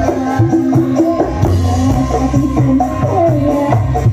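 Live dangdut music from an orkes melayu band: a bending melody over bass and drums.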